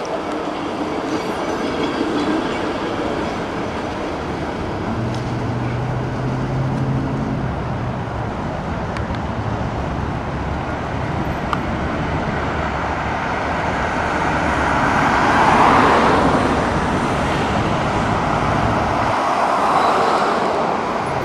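PCC streetcar running on street track amid city traffic, with a steady low hum for several seconds in the middle. About three quarters of the way through, the sound swells as a vehicle passes close by.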